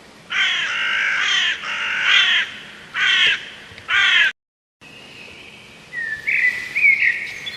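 A bird calling loudly in four bursts of repeated calls over the first four seconds. After a short break, a fainter call with a rising pitch comes near the end.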